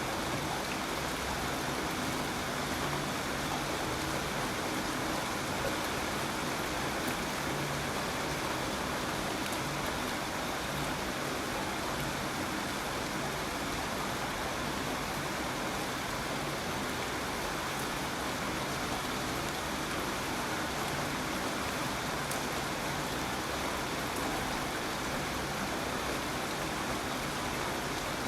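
Steady rainfall, an even hiss of rain with faint scattered drop ticks.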